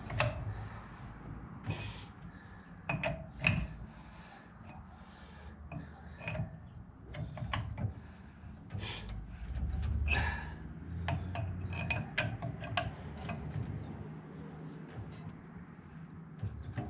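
Hub puller being fitted onto a car's wheel hub: irregular metallic clinks and clanks of steel parts knocking together, some with a short ring.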